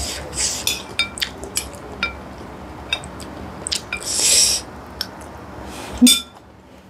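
Metal spoon clinking and scraping against a glass bowl of soupy noodles several times, with a slurp of noodles and broth about four seconds in. A last clink comes near the end as the spoon is set down in the bowl.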